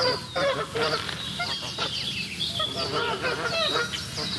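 A flock of Canada geese honking, many calls overlapping in quick succession.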